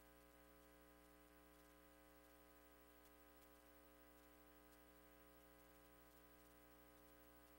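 Near silence: a faint, steady electrical hum with low hiss.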